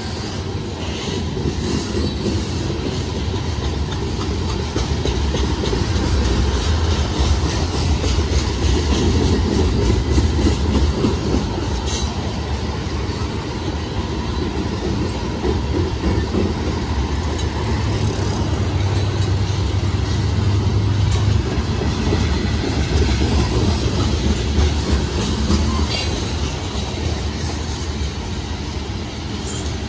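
Freight train's tank cars rolling past: a steady rumble of steel wheels on rail that swells and eases slightly, with a few sharp clicks from the wheels.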